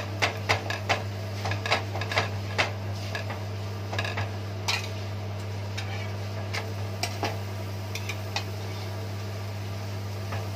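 A metal spoon and spatula clicking and scraping on a non-stick tawa while ghee is spread over a paratha. The clicks are irregular, thickest in the first second, over a steady low hum.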